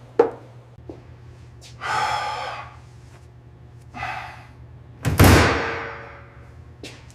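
A knock, two short breathy hissing sounds, then a loud slam about five seconds in that rings on and fades over about a second.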